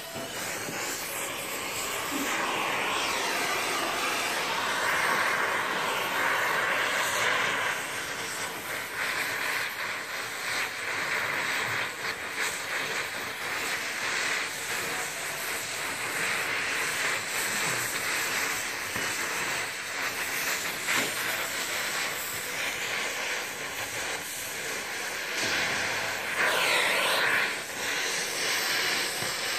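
Oxy-acetylene welding torch flame hissing steadily as it melts baling wire into a rusty muffler joint, growing louder for a moment near the end.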